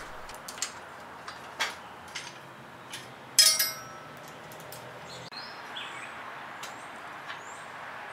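Scattered light metallic clicks and knocks from cooler-line fittings and tools being handled on a transaxle case, with one louder ringing metal clink about three and a half seconds in.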